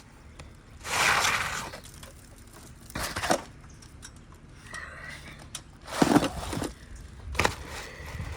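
A cracked 3-tab asphalt shingle being pried and pulled loose from the roof: five or so short crunching, tearing scrapes, each under a second long, with pauses between them.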